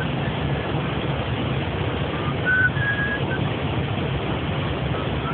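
Airbus cockpit noise in flight: a steady rush of air over a low hum, with faint short whistling tones coming and going.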